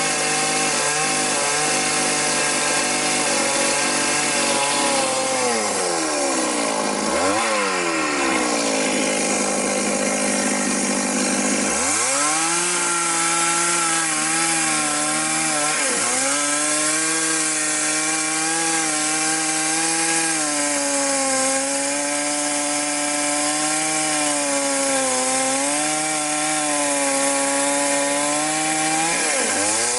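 Chainsaw ripping a log lengthwise, running under load through a long cut. Its engine note sags several times and comes back up as the chain bogs in the wood, most deeply a little after five seconds in.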